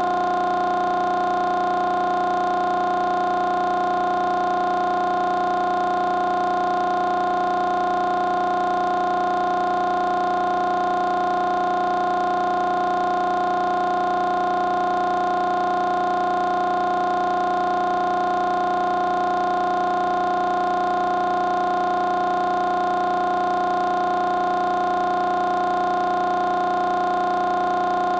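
A steady, unchanging drone of several held tones, mid-pitched, with no change in pitch or loudness.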